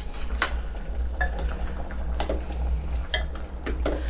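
A metal spoon stirs pork ribs in a thick sauce, clinking sharply against the side of an amber glass pot several times at irregular intervals.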